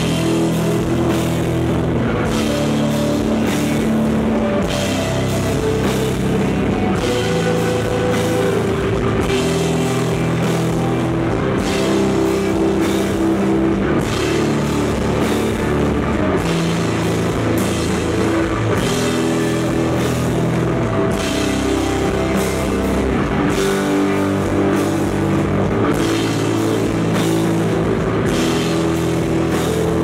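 Live desert rock band playing loud: distorted electric guitars and bass guitar holding long sustained notes over a driving drum kit.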